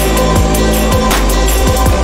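Background electronic music with a heavy beat and a steady deep bass.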